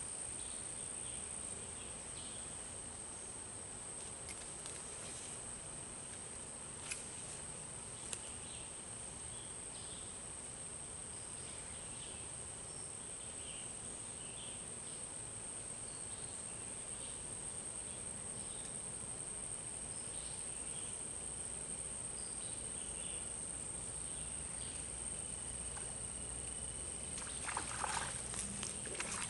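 A steady, high-pitched drone of insects in the creekside woods, with a couple of sharp clicks and faint chirps, and near the end a brief splash as a small hooked fish is pulled out of the water.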